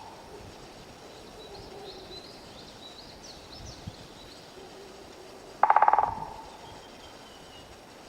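Woodpecker drumming: one short, very fast roll of beak strikes on wood, about half a second long, a little past the middle. Faint small-bird chirping in the first half.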